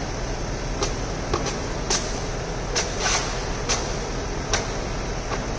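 Steady engine hum of a running truck-mounted boom lift, broken by about eight sharp, irregularly spaced clicks and ticks.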